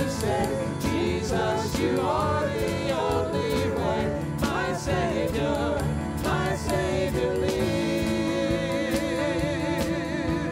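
Gospel worship music: voices singing a melody over a band, ending on a long held note that wavers in pitch.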